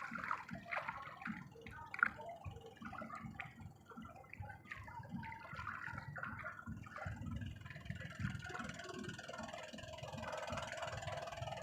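Water sloshing and dripping with scattered clicks and knocks. A faint steady hum comes in after about eight seconds.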